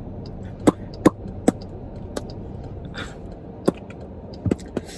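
About seven short, sharp clicks or smacks at irregular intervals over a low, steady background hum.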